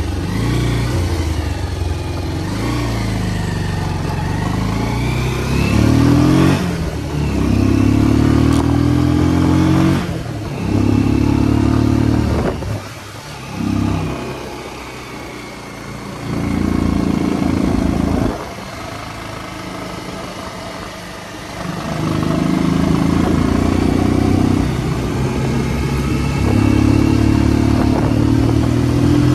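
Bajaj Pulsar 150's single-cylinder engine running with its air filter removed while riding. The engine note rises and falls as the throttle is opened and shut, with several quieter stretches of throttle off between louder pulls.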